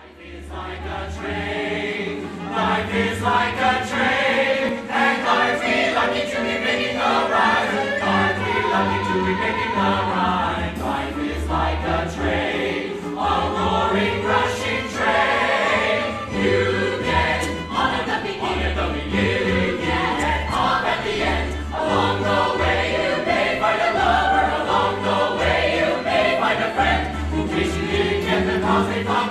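Musical theatre number: a chorus of voices singing with a band, a bass line stepping beneath them.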